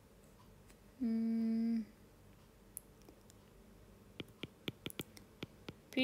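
A person hums a short, flat 'mm' of under a second. Then comes a quick run of light clicks: a stylus tapping on a tablet screen while writing a word by hand.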